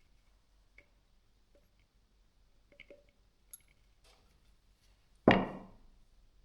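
Faint clicks of small hammer-drill gearbox parts being handled while they are greased, then one sudden loud knock about five seconds in that dies away within half a second.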